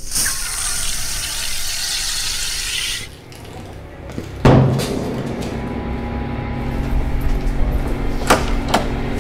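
A loud hissing fizz from the reacting test tube for about three seconds, cut off suddenly. About a second and a half later comes a single deep boom, followed by a low steady drone with a few sharp hits near the end.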